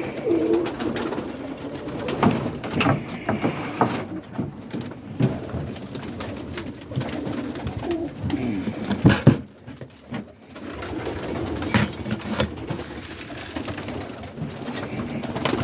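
Domestic roller pigeons cooing in a loft, with scattered knocks and flutters in between; the loudest knock comes about 9 seconds in.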